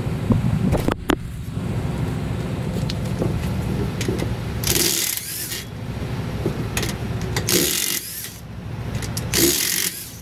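DeWalt cordless impact wrench run in three short bursts on the nuts of a truck's rear wheel hub, each burst a loud rattling whir. A steady low rumble runs underneath.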